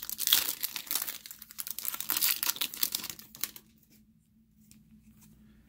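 Shiny foil trading card pack wrapper being torn open and crinkled by hand, a dense crackling rustle lasting about three and a half seconds.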